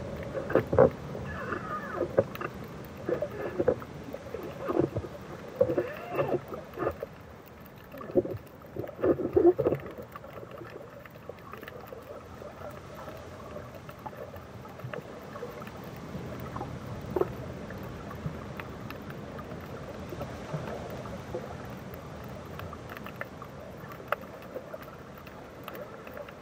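Muffled water noise picked up by a camera held underwater: irregular sloshing and splashing for about the first ten seconds, then a steadier, quieter rush.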